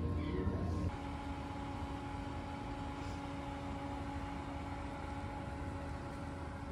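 Steady background hum. A low indoor hum gives way, after a cut about a second in, to a constant outdoor drone with a steady tone in it, like distant traffic or machinery.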